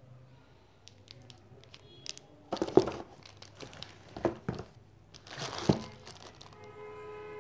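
Plastic wrapping crinkling and steel T-spanners knocking against each other and the cardboard box as they are lifted out by hand, with a few sharp louder clunks.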